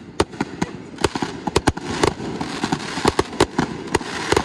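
Fireworks grand finale: aerial shells going off in rapid, irregular succession, several bangs a second, with continuous crackling between them. The loudest bang comes near the end.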